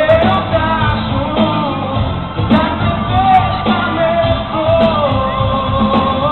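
Live band playing a Greek pop song with a male lead vocal. The sound is dull and low-fidelity, with nothing above the upper midrange.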